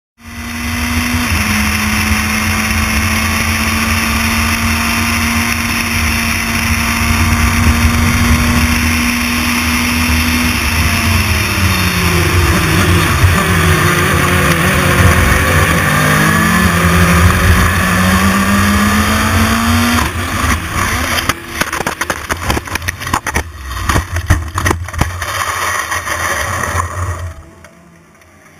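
Race car engine heard from onboard, holding a steady high note under full throttle, then falling and climbing again through downshifts and throttle blips. About twenty seconds in the steady running breaks into a rapid series of knocks and bangs as the car crashes, and the sound drops away sharply near the end.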